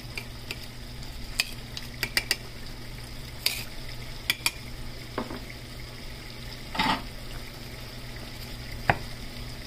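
Small knife cutting garlic cloves inside a volcanic-stone molcajete: scattered sharp clicks and taps as the blade hits the stone, about ten over the span, one a little louder near the end, over a steady low hum and hiss.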